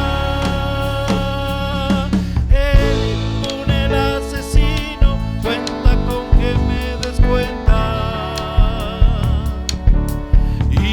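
Small folk ensemble playing an instrumental passage of a song between sung verses: held melody notes with vibrato over a bass line, with a steady percussive beat coming in about two and a half seconds in.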